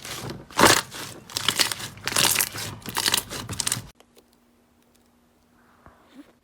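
Crunchy slime being squeezed and pressed, giving dense crackling and crinkling for about four seconds. The sound then cuts off suddenly, leaving a faint low hum and a few light ticks.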